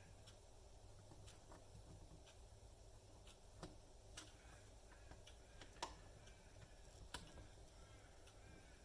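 Near silence: a faint low hum with a dozen or so scattered small clicks and taps, as of parts being handled during the repair of the appliance.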